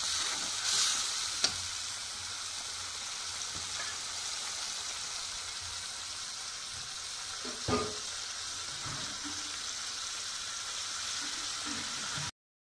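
Ground onion-garlic masala sizzling steadily in hot oil in a metal kadhai while a steel spatula stirs it, with a sharp click of the spatula on the pan about a second and a half in and another knock near eight seconds. The sound cuts out briefly at the very end.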